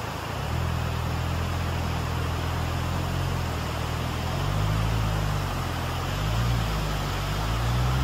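A motor vehicle driving: a low engine drone that shifts in pitch every few seconds over a steady rushing noise.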